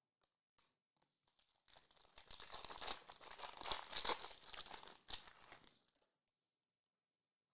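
Foil wrapper of a 2021-22 Prizm basketball hobby pack being torn open and crinkled: a dense crackling rustle lasting about four seconds, starting a couple of seconds in, after a few faint clicks.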